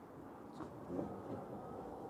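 Mercedes GLC SUV crawling over a rocky dirt track: a low, steady running sound with stones crunching and knocking under the tyres, a sharper knock about a second in.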